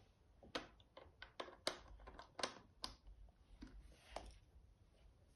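Small plastic Lego pieces clicking and clattering as they are handled: a string of sharp, irregular clicks.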